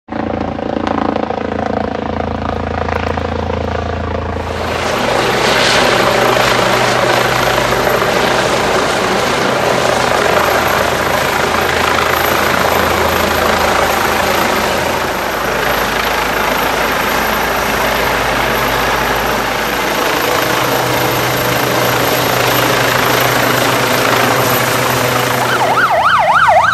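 Eurocopter EC135 air ambulance helicopter flying low and coming in to land, its rotor and turbine noise loud and steady. About a second before the end a fire engine's siren starts, wailing rapidly up and down.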